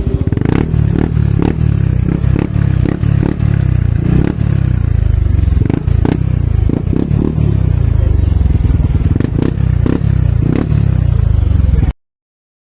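Yamaha NMAX 155 scooter's single-cylinder four-stroke engine running through a gutted ('kalkal') exhaust pipe: a loud, rough exhaust note with frequent sharp pops and crackles. It cuts off suddenly near the end.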